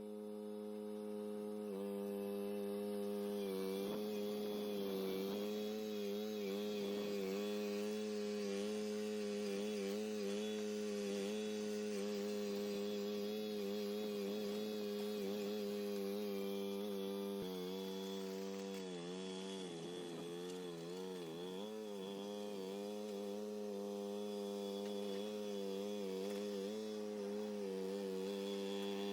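Boxer 427 mini skid steer's engine running steadily, its pitch dipping and wavering at times as the machine works, most markedly about two-thirds of the way through.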